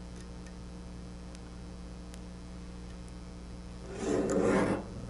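Metal parts of a mill's Z-axis ball screw assembly being worked by hand with a hex key: a few faint clicks over a steady low hum, then a loud rubbing scrape lasting about a second near the end.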